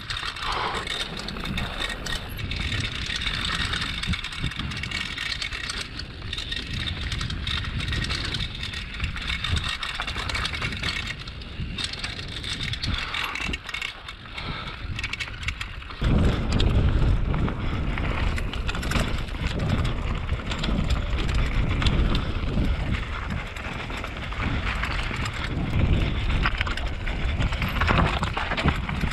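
Mountain bike riding down a dirt and stony downhill trail, heard through a GoPro action camera: tyres rolling and crunching over gravel and rocks, with constant clattering and rattling from the bike. About halfway through the rumble turns heavier and louder.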